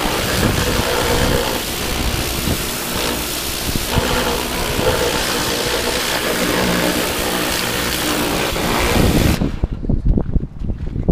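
Pressure washer jet hissing steadily against the mini excavator's rubber track and undercarriage, over a steady mechanical hum. About nine seconds in the spray stops, leaving only low, uneven rumbling.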